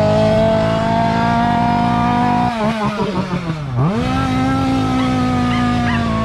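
Small petrol engine running at high revs, easing off and dipping in pitch about three seconds in, then revving back up and holding steady before slowly winding down near the end.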